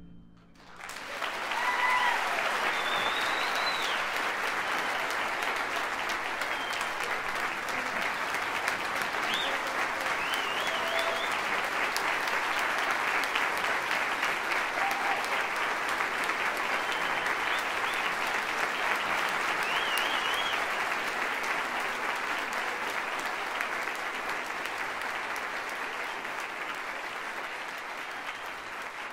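Audience applause that starts about half a second in, as the band's final chord dies away, and carries on steadily, easing off slightly near the end.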